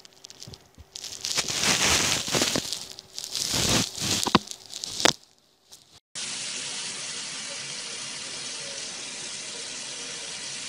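Loud rustling and a few sharp bumps close to the microphone for the first few seconds. From about six seconds in, a steady stream of water running from a tap.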